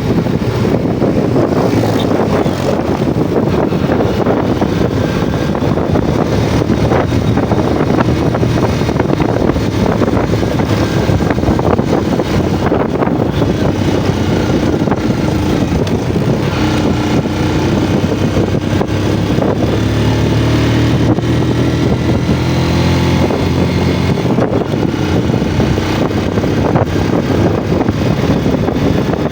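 Yamaha Jupiter MX motorcycle engine running while being ridden, with wind noise on the microphone. Past the middle the engine note climbs and holds for several seconds, then drops away again.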